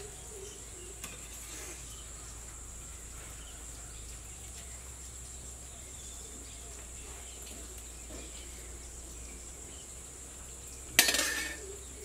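A metal serving spoon scooping biryani from a steel pot onto a steel plate, with faint scrapes and clinks, then a single sharp metallic clang with a short ring near the end. A steady high insect chirring runs underneath.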